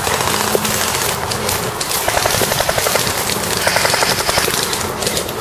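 Two short bursts of full-auto airsoft gunfire, each a fast rattle of about fifteen shots a second lasting under a second, the first about two seconds in and the second about three and a half seconds in. Underneath, steady rustling and footfalls on leaf litter.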